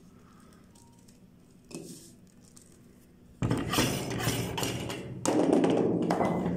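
A hand-cranked metal meat grinder turning and crushing chocolate wafers: after a quiet start, a dense crunching crackle of many small clicks begins suddenly about halfway through and grows louder near the end.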